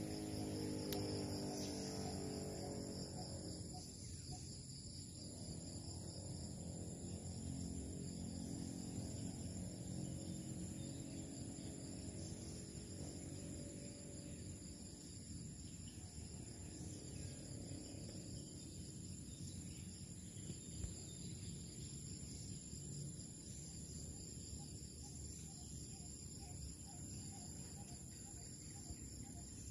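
Steady high-pitched insect chorus, with a low rumbling hum underneath that is strongest in the first few seconds.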